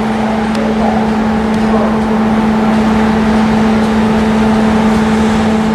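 Romanian EA-class electric locomotive moving a rake of passenger coaches away. It gives a loud, steady hum on one even pitch with fainter higher tones above it.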